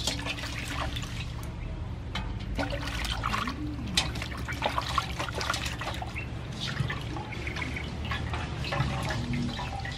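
Water sloshing and splashing in a metal basin as a whole plucked chicken is washed by hand, turned over and lifted out. There are irregular splashes and drips, with a few sharper splashes about halfway through.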